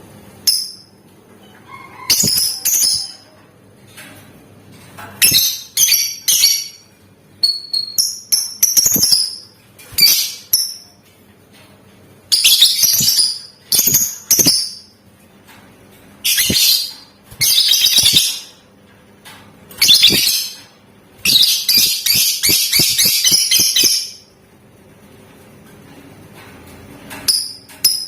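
Lovebird calling in short, shrill, high-pitched chattering bursts, about a dozen of them, with gaps between. Near the end comes one rapid chatter of about three seconds, the long song that keepers call 'ngekek'.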